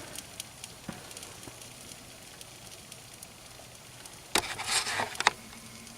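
Plastic burning inside a microwave oven, with faint crackling and sizzling and scattered small pops. A louder burst of crackling comes about four and a half seconds in.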